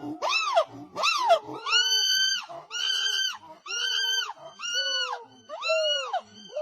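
A monkey's repeated high-pitched calls, about seven in a row at roughly one a second, each rising and falling in pitch.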